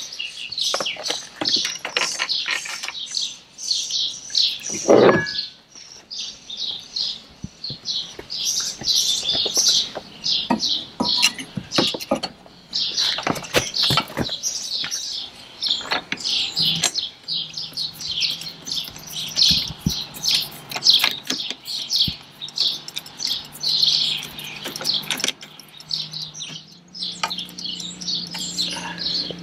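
Small birds chirping constantly, many quick chirps overlapping, with scattered clicks and knocks from a metal rock guard and hex key being handled and tightened onto an electric outboard's lower unit.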